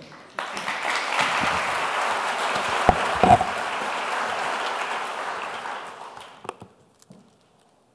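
A large audience applauding, starting about half a second in, holding steady, then dying away near the end. Two dull knocks sound about three seconds in.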